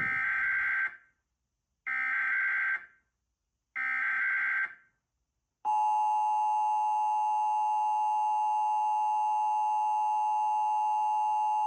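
Emergency Alert System broadcast for a required monthly test: three one-second bursts of screeching digital SAME header data, about a second apart, then the steady two-tone EAS attention signal starting about six seconds in.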